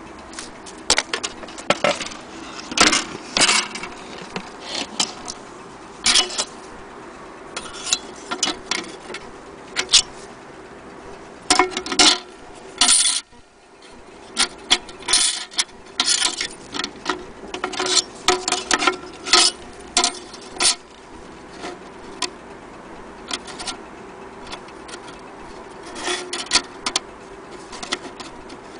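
Irregular clicking and clattering of the Elliott chime mantle clock being handled, in uneven clusters of sharp clicks with short pauses, over a faint steady hum.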